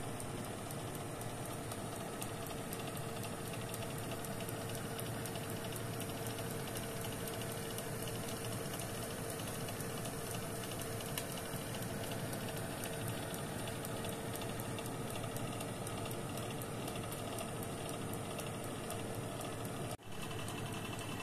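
Centek glass-bowl convection oven (aerogrill) running while it bakes: its fan gives a steady whir with a faint hum. The sound cuts out for an instant about twenty seconds in, then carries on the same.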